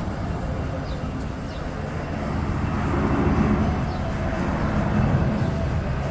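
Steady low rumbling background noise, like a vehicle or machine running nearby, swelling slightly from about three seconds in, with a few faint light clicks.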